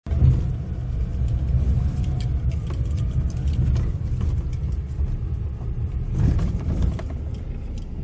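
A loud, uneven low rumble with a few faint clicks, like an engine or heavy wind on the microphone.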